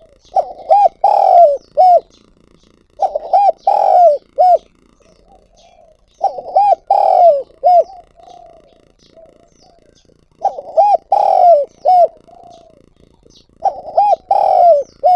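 Spotted dove cooing: five loud phrases of three or four coos each, repeated about every three to four seconds, with soft coos between them. This is the male's advertising call, which keepers play as a decoy to draw wild doves.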